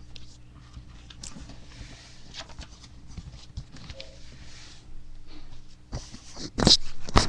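A sheet of paper being folded and creased by hand: scattered soft rustles and crinkles, with the loudest, sharpest crackles near the end as the fold is pressed down.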